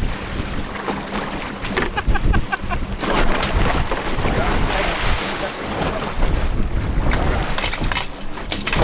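Wind buffeting the microphone over the low, steady rumble of a fishing boat's engine and water moving past the hull. About two seconds in there is a brief run of quick, evenly spaced pitched clicks.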